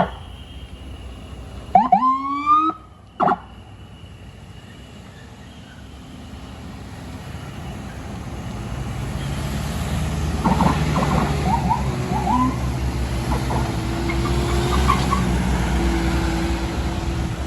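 A short rising siren whoop about two seconds in. Then a vehicle's engine grows steadily louder as it approaches, with a few brief chirping tones over it.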